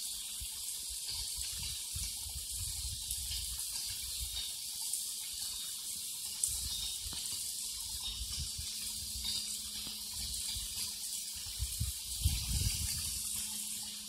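Small stone waterfall splashing steadily into a garden pond, a continuous hiss of falling water, with irregular low rumbles underneath.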